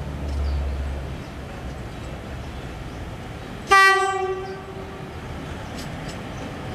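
Batara Kresna train's horn sounding one short blast of a single steady tone about four seconds in, starting suddenly and fading away within about a second.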